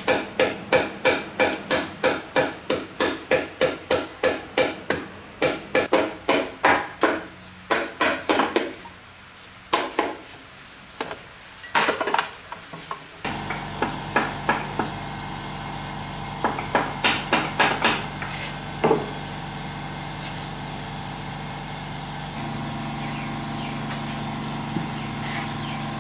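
Rapid, regular hammer blows on metal, about three a second, with a ringing after each strike. About halfway through they stop and a steady machine hum takes over, with a few short runs of tapping and a change in the hum near the end.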